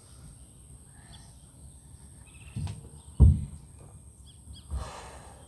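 A few low thuds of bare feet landing on a wooden deck during a dumbbell lunge, the loudest about three seconds in. A bird gives two short chirps about four seconds in.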